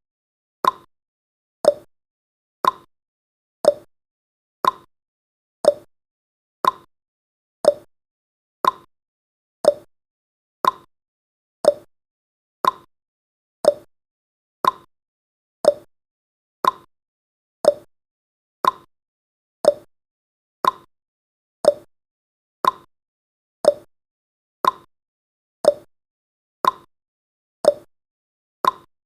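Countdown timer's clock-tick sound effect, one short sharp tick each second at an even pace, with silence between ticks.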